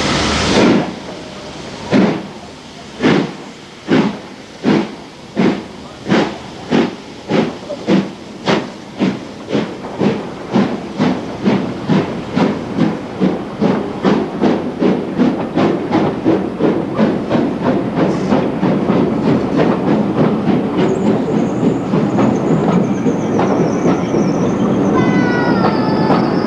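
Steam locomotive starting a train away: a burst of steam hiss cuts off about half a second in, then the exhaust chuffs begin about one a second and quicken steadily until they run together into a fast beat as the coaches roll past. A thin high squeal joins in over the last few seconds.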